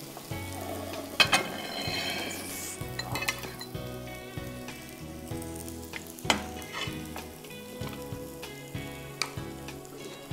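Chops and chicken pieces sizzling in a pan of thick tomato-cream sauce, with stirring. Two sharp knocks stand out, about a second in and again about six seconds in.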